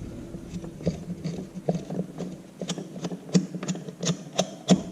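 Irregular light clicks and taps of a small plastic camera mount and its parts being handled, several a second, over a steady low hum.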